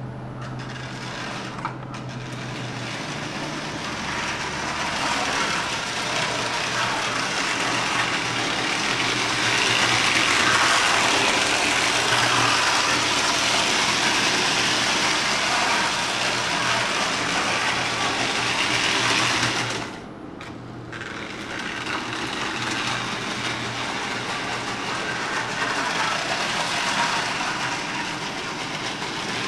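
Marx 99 Rock Island E7 A-B-A diesel toy train running on three-rail tinplate track: a steady motor whir and wheel rattle over a low hum. It grows louder toward the middle, drops suddenly about two-thirds of the way through, then builds again.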